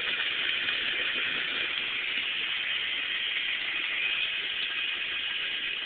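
Vita-Mix blender running steadily on a thick, dry load of snack cakes and Pop-Tarts that is not blending, then cutting off at the very end.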